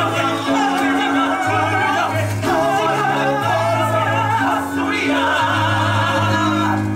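A musical-theatre song: a man singing with a wavering voice over band accompaniment with steady held bass notes.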